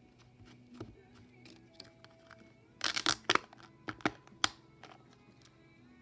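A clear plastic tub of slime being handled, giving a quick burst of sharp crackling clicks about three seconds in and a few single clicks soon after, over soft background music.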